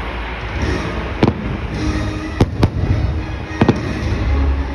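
Aerial firework shells bursting: four sharp bangs, a single one about a second in, a quick pair midway and one more near the end, over continuous show music.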